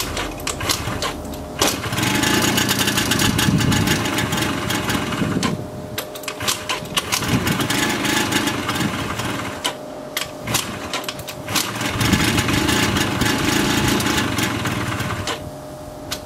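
Yamaha Jog CG50 scooter's 50cc two-stroke engine running unevenly just after a hard start, its revs rising three times and falling back, with uneven popping at low revs in between. It is a poor-starting engine still struggling to pick up and warm up.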